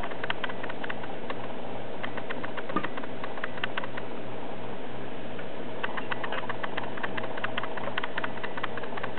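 Plastic mouse exercise ball rolling across a floor: runs of quick, uneven clicks and rattles, under a steady low hum.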